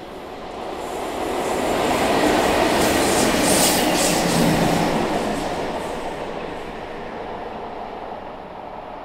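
Three electric locomotives coupled together and running light without wagons, two Class 90s and a Class 92, passing close by on the rails. The wheel-on-rail rumble swells to its loudest about two to five seconds in, then fades as they move away.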